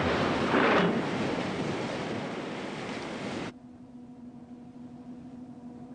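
Ship's deck gun firing: a blast with a second bang under a second in, then a long rumble that fades and cuts off suddenly about three and a half seconds in, leaving a faint steady hum.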